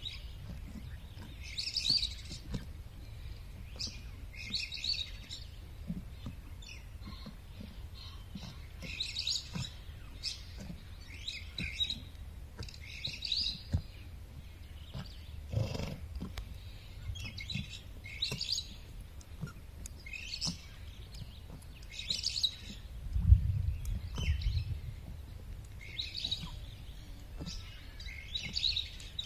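Songbirds chirping in short repeated calls every second or two, over a steady low rumble. A low thump comes near the middle, and a louder one about two-thirds of the way through.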